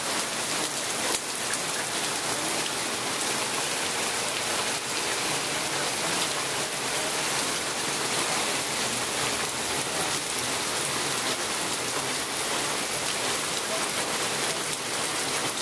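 Heavy hurricane rain pouring steadily onto a flooded patio and puddle: a dense, unbroken hiss of rain on water and pavement.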